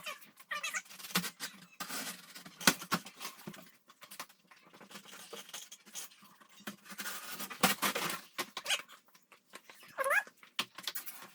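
Cardboard and plastic packaging rustling, with parts clicking and clattering as they are handled during an unboxing. A short rising vocal sound comes about ten seconds in.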